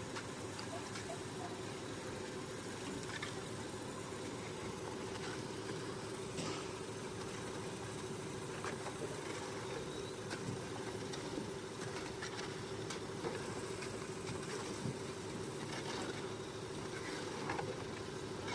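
Concrete mixer machine's engine running steadily with a constant hum, with scattered small knocks and clatters over it.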